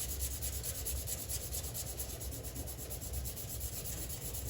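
Sanding glazing spot putty on steel truck bodywork with 400-grit sandpaper by hand, a steady rasping rub of closely repeated strokes.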